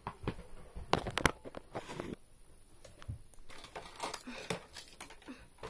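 Handling noise: a few sharp knocks with light rustling between them, the two loudest knocks coming close together about a second in.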